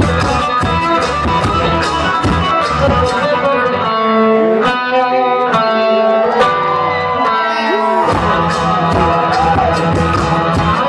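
Live funk music: guitar over a drum beat. About four seconds in, the drums drop out and held notes ring alone for a few seconds, then the beat comes back in.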